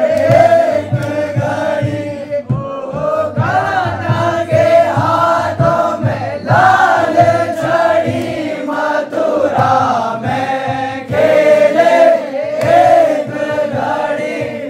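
A group of men singing a Holi folk song in chorus, with a drum beating a steady rhythm of about two strokes a second.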